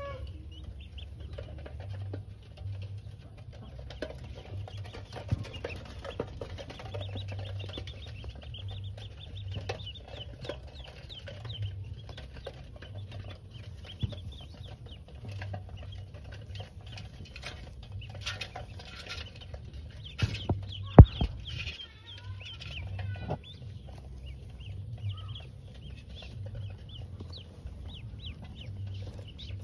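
Pekin ducklings peeping over and over in short high calls, with straw rustling and handling noises in a plastic basket. A sharp knock comes about two-thirds of the way through.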